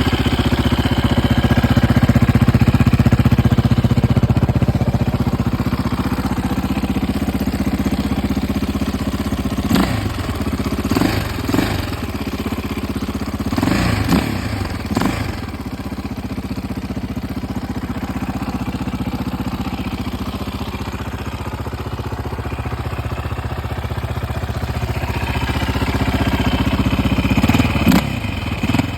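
KTM 660 SMC's single-cylinder LC4 engine, breathing through a full titanium Akrapovic exhaust, running steadily at idle. A few short sharp blips come around the middle and again near the end.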